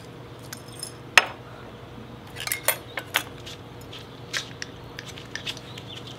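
A few sharp clicks and clinks of a small glass jar of pickles being handled, the loudest about a second in and a cluster near the middle, over a faint steady hum.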